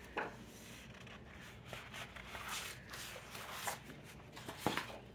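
Sheets of patterned scrapbook paper rustling and sliding as they are handled and turned over, with a few sharper swishes as sheets are lifted and laid down.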